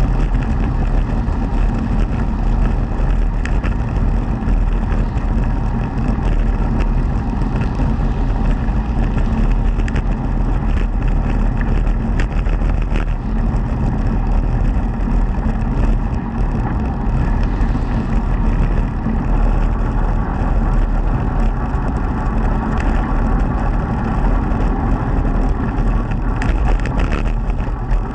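Velomobile rolling fast along an asphalt bike path: a steady low rumble of tyres on the road with a faint hum, heard from inside the fairing.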